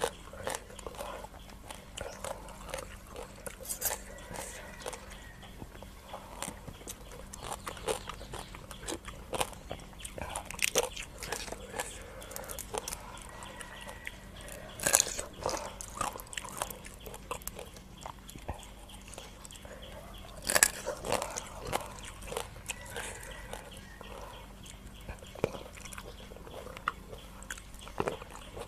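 Close-miked eating sounds: a person biting and chewing crunchy raw field crab papaya salad (som tam pu na) with fresh vegetables. There are wet mouth clicks and smacks throughout, and a few sharper crunches every several seconds.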